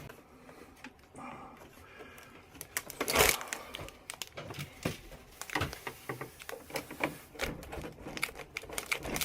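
Clicks, taps and rattling as a window air conditioner is handled and seated in its window-frame mount, with one louder knock about three seconds in.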